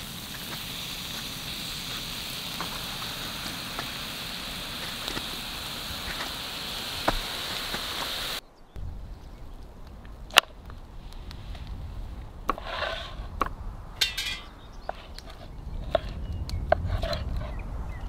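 Ribeye steak and vegetables sizzling on a hot cast-iron griddle: a steady crackling hiss. About eight seconds in it stops abruptly and gives way to sharp clicks and short scraping sounds as the steak is handled on a wooden cutting board and cut with a knife.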